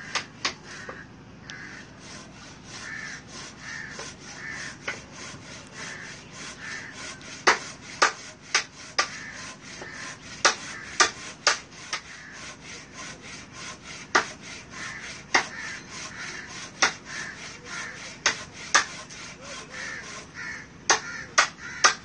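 Short bird calls repeating over and over, with many sharp clicks or taps at irregular intervals that are the loudest sounds.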